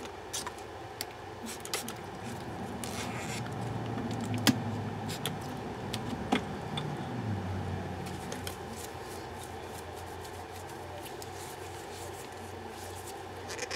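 Gloved hands working a silicone cylinder mould off a cured resin casting: rubbing and handling noises with scattered sharp clicks, over a low steady hum.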